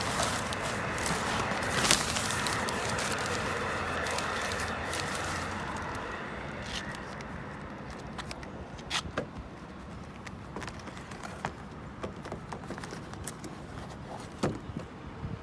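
Steady mechanical noise that fades over the first several seconds, then scattered clicks and light knocks of filters and access panels being handled on a rooftop HVAC unit.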